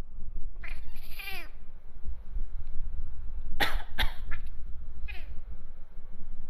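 Bengal cat meowing in short falling calls, twice in the first second and a half and once more about five seconds in. About three and a half seconds in come two quick coughs from a person, the fake coughs the cat reacts to.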